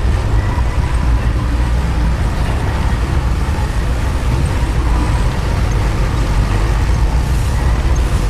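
Heavy construction machinery's diesel engine running steadily, a constant low rumble with no breaks or changes.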